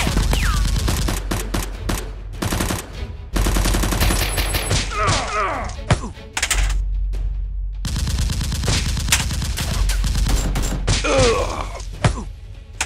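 Bursts of rapid automatic gunfire, shot after shot, with short breaks between bursts. A man cries out about five seconds in and again about eleven seconds in, as if hit.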